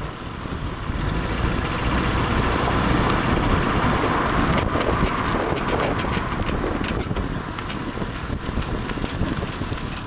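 Car tyre and road noise with wind rushing over the microphone as the car drives along. A run of irregular sharp ticks comes in about halfway through and lasts a few seconds.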